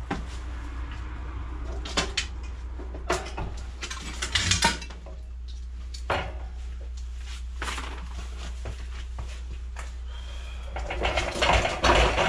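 Metal clanks, knocks and rattles as an old air compressor and its parts are handled: a few separate knocks, then a denser run of clatter near the end, over a steady low hum.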